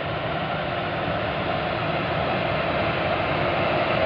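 Diesel-powered rail track maintenance machine running along the track as it approaches, a steady engine-and-wheel noise growing slowly louder.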